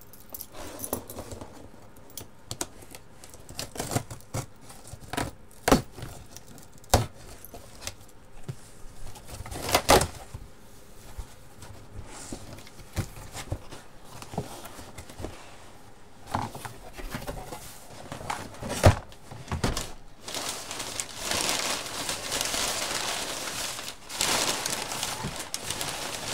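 A cardboard shipping box being opened by hand: scattered knocks and key clinks with tearing of tape and cardboard. From about twenty seconds in, a continuous crinkling rustle of crumpled packing paper being pulled out of the box.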